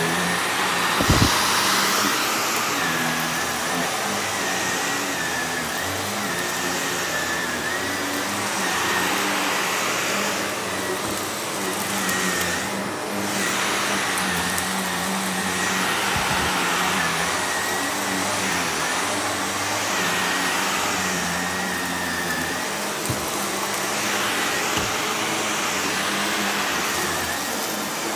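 Shark upright vacuum cleaner running steadily as it is pushed over a rug, its high motor whine wavering with the strokes. There are a few short knocks, the loudest about a second in.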